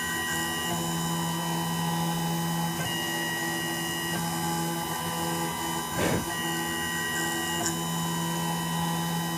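Small CNC milling machine running while it mills down an iPhone logic board. The spindle hum is steady, and a higher whine from the drive comes and goes in repeating passes about every three and a half seconds. A brief scraping noise comes about six seconds in.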